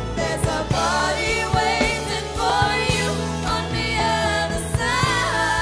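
Gospel song: a woman sings the line "There's a body waiting for you, on the other side" over backing with steady bass notes and regular percussion.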